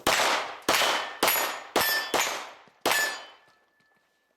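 Six pistol shots in quick succession, about half a second apart, each hit setting a steel target ringing. The last plate rings on for about a second before fading.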